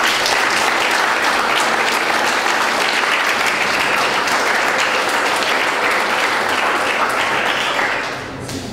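A room full of guests applauding, a steady round of clapping that thins and fades out near the end.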